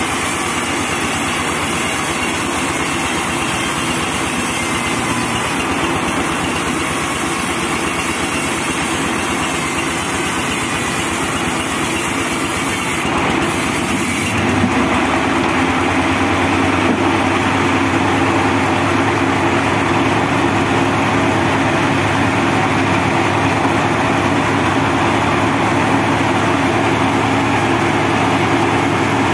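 Homemade band sawmill driven by a diesel engine, running steadily as a teak log is pushed through the blade on its carriage. The machine's tone shifts about halfway through.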